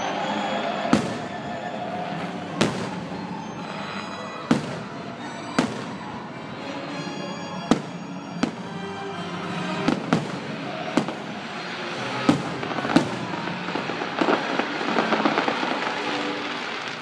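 Aerial fireworks shells bursting in about ten sharp bangs a second or two apart, then a quick run of crackling pops near the end, over the fireworks show's music.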